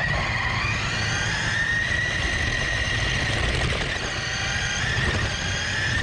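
Sharper Image Mountain Thrasher RC truck's electric motor and gears whining at full throttle in reverse: a steady high whine over a low rumble, dipping briefly about two-thirds of the way through.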